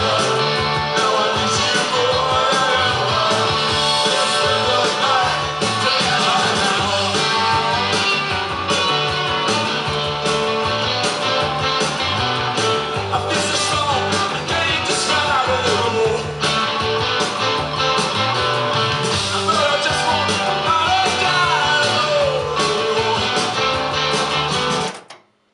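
Rock song with singing and guitar played back from a cassette on an Akai GX-F95 cassette deck. It cuts off suddenly near the end as the deck is stopped.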